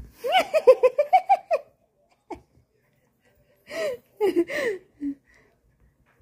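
A person laughing: a quick run of high giggles, then a few longer, falling laughs about four seconds in.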